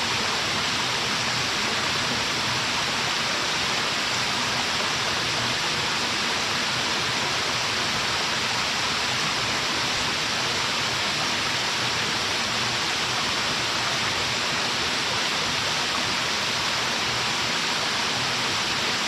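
Waterfall pouring steadily, a dense unbroken rush of falling water.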